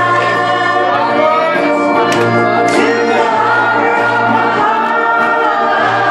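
Music with a group of voices singing sustained notes over a steady bass line.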